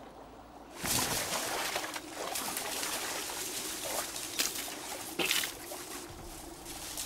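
Rustling and swishing of tussock grass as someone pushes through it, starting suddenly about a second in, with a few sharp crackles.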